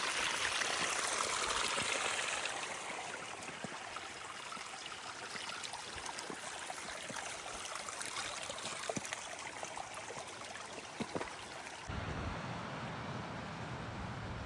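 Mountain stream rushing over rocks: a steady, even hiss of running water. About twelve seconds in it cuts abruptly to a lower rumble.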